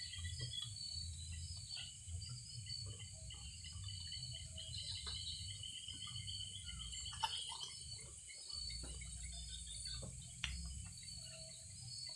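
Steady high-pitched chorus of night insects, crickets among them, with a low rumble underneath and a few light clicks and knocks, the sharpest about seven and ten seconds in.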